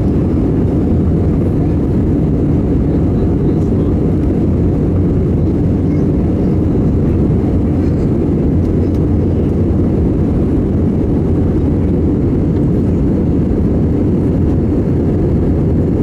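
Airbus A320 airliner in flight, heard from inside the passenger cabin: a steady, loud, low drone of engine and airflow noise that does not change.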